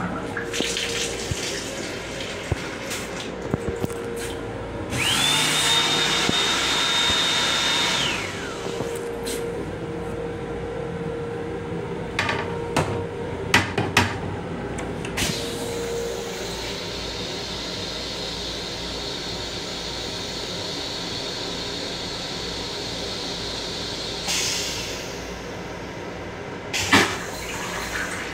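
Flush cycle of an M7 commuter railcar's toilet: a motor whine climbs to a high steady pitch for about three seconds and then winds down, followed by a few sharp clicks and a long steady hiss of water lasting about eight seconds, with a short rush near the end. A low hum from the moving train runs underneath.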